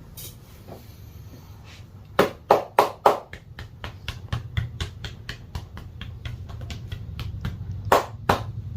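Hand slaps of a percussive head and back massage: four loud slaps about two seconds in, then a run of quicker, lighter taps at about five a second, then two more loud slaps near the end, over a low steady hum.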